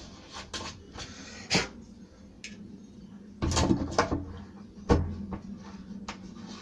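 Knocks, clicks and clattering as a door lock is worked out of and back into its recess in the edge of a wooden door: a sharp knock about a second and a half in, a clatter around three and a half seconds in, and a loud knock about five seconds in.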